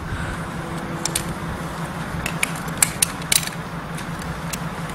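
A few short, sharp metal clicks and clinks from the scoop stretcher's fittings being handled, over a steady low hum.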